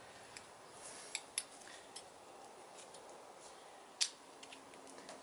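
A few light metallic clicks and taps from engine parts being handled at a bare engine block, the loudest about four seconds in.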